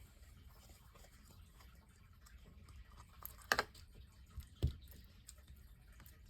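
Hands working a small lump of sticky slime: faint squishing and crackling, with two sharp clicky pops a little past halfway.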